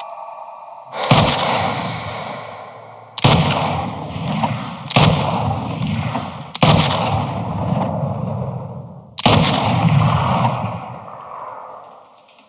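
Five gunshots, each ringing out in a long echoing decay, spaced irregularly about one and a half to two and a half seconds apart.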